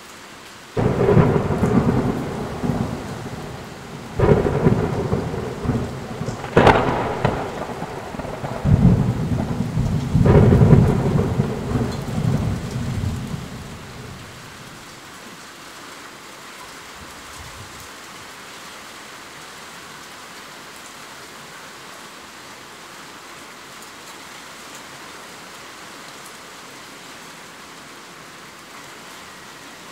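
Heavy rain falling steadily, with a thunderstorm: about five loud crashes of rolling thunder in quick succession, the first a second in, die away about halfway through, leaving only the steady rain.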